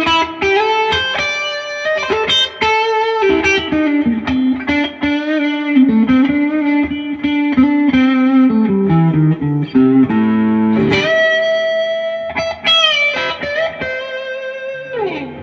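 Duesenberg Starplayer Special electric guitar played clean on its bridge pickup in single-coil mode, through a Fender '65 Reissue Deluxe Reverb amp. It plays a single-note lead line with held, bent notes and a descending run, and ends with a slide down the neck.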